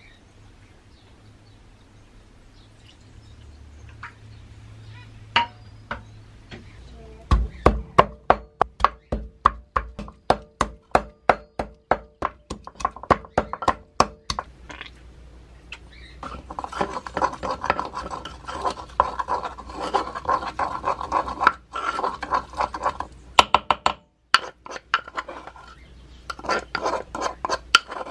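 Wooden pestle pounding garlic cloves in a wooden mortar: a run of sharp knocks at about three a second. Then the pestle grinds and scrapes the garlic into a paste, with a few more knocks near the end.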